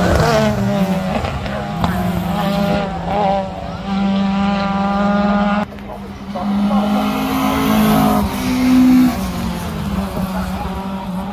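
Rally cars racing past on a wet tarmac stage. The first passes flat out at the start, its engine note falling as it goes by. After an abrupt break, a second car's engine revs up through the gears as it approaches and passes near the end.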